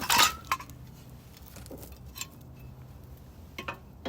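Metal parts of an antique gas water heater's burner clinking and scraping as they are handled and fitted back into place: a loud rattling scrape at the start, then a few light clinks.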